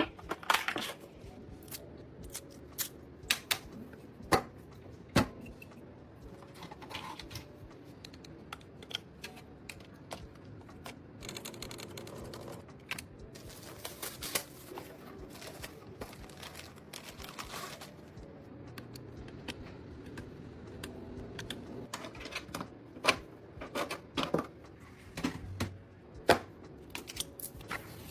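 Irregular sharp clicks and light taps of hard plastic and metal computer parts being handled, some close together and some a second or more apart. They thin out in the middle and pick up again near the end.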